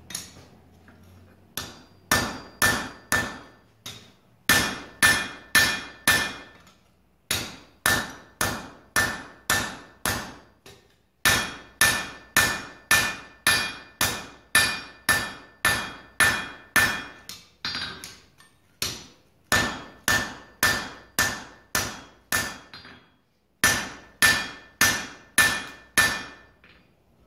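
Blacksmith's hand hammer striking hot iron on an anvil, each blow ringing. The blows come in steady runs of about two a second, with short pauses between the runs.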